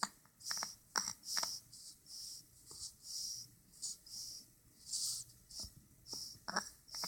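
Snoring in quick, hissy, wheezy breaths, about two a second, with small clicks between them.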